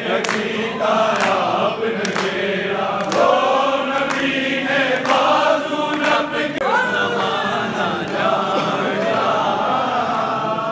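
A crowd of men chanting together, a devotional chant sung by many voices at once, with scattered hand claps.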